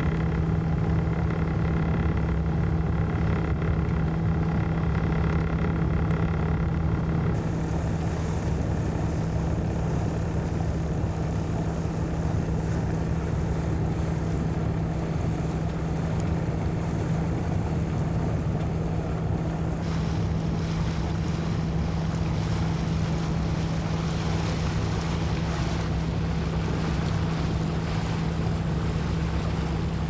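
A sailboat's auxiliary engine running steadily under motor, a constant low hum, with water washing along the hull and wind on the microphone; the hiss of water and wind grows brighter after about seven seconds.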